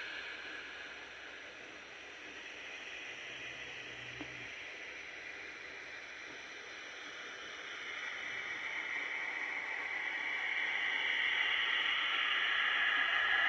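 Radio static hissing, dipping a little early on and swelling louder from about eight seconds in.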